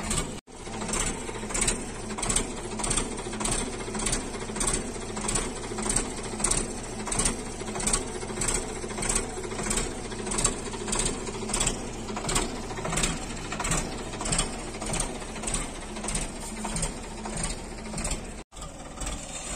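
Sonalika tractor's diesel engine running steadily while its hydraulics raise a loaded tipping trailer, with a regular clatter about one and a half times a second.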